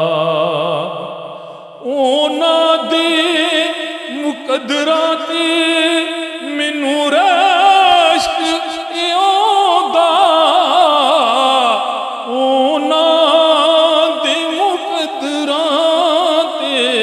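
A man singing a Punjabi naat (devotional song in praise of the Prophet) into a microphone, in long drawn-out phrases with wavering, ornamented notes. A held note fades out near the start and a new phrase begins about two seconds in.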